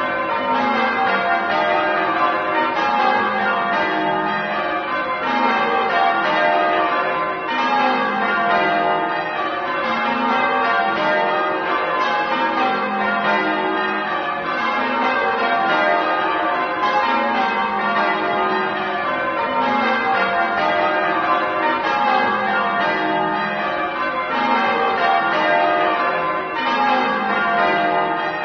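Church bells ringing a continuous peal, many bells struck one after another in repeated runs that fall in pitch.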